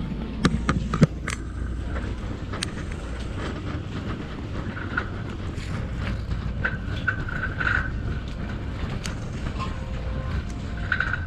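Shopping cart rolling over a hard store floor: a steady rumble from the wheels with the wire basket rattling, and a few sharp clatters about a second in.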